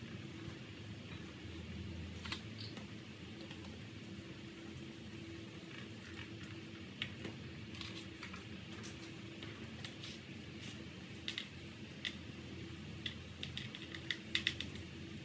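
Pot of pork bones and water boiling: a steady low rumble with scattered small pops and ticks of bursting bubbles, which come thicker near the end.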